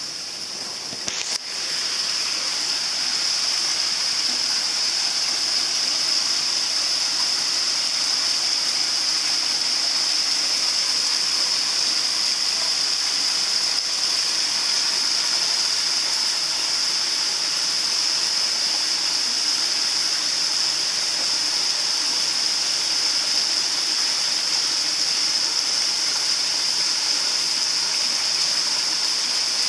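Water running and splashing into a koi pond, a steady hiss with a bright high edge. A click about a second in, after which it gets louder.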